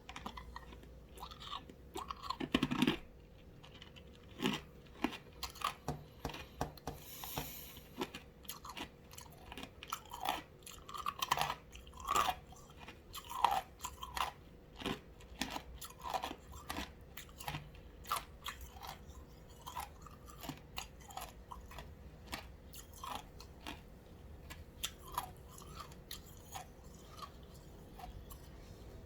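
Ice cubes being crunched and chewed close to the microphone: a long run of sharp, irregular cracks, loudest a few seconds in and growing softer and sparser in the second half.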